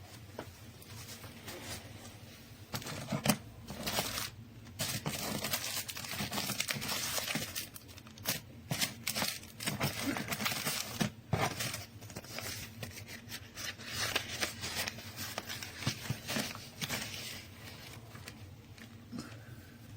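Irregular scratching and rustling handling noises with scattered sharp clicks, busiest through the middle.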